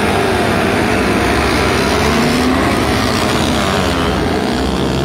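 A field of sport motorcycles pulling away from a standing race start, many engines revving at once with overlapping rising pitches.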